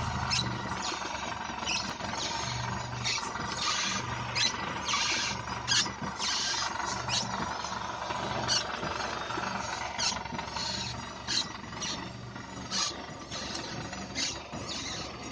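Lada Xray suspension squeaking: short, irregular high-pitched squeaks and creaks, some in quick runs, over a low steady hum.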